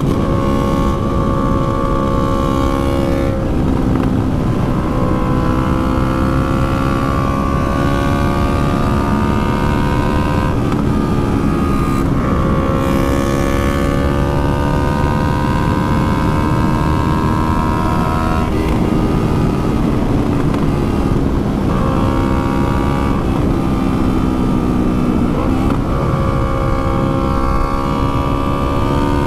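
Yamaha R3 parallel-twin motorcycle engine running steadily at riding speed, its pitch stepping several times as gears change. A constant rush of wind noise lies underneath.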